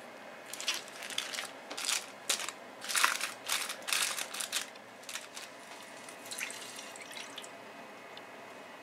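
Aluminium foil crinkling in a run of quick rustles as hands fold and crimp the edges of foil-wrapped fish packets; near the end, water is poured from a measuring cup into a frying pan.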